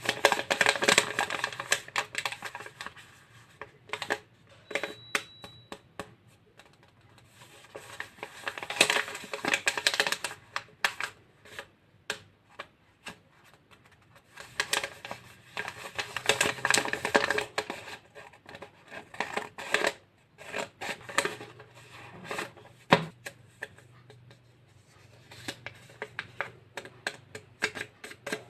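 Paper and plastic wrapping being handled, crinkling and rustling in bursts of dense crackle with quieter stretches between.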